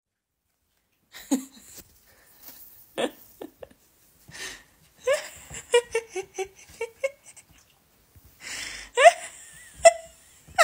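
A dog whining and grumbling in a string of short moans that bend up and down in pitch, with louder rising whines near the end.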